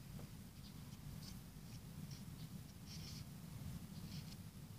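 Faint scattered scratchy rustles and light ticks of a small container of salt being handled and salt poured into a bowl.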